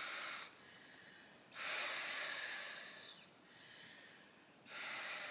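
A person inflating an orange inflatable by mouth: forceful breaths blown into its valve, with quiet pauses between them. One blow ends about half a second in, a long one lasts about a second and a half, and a third starts near the end.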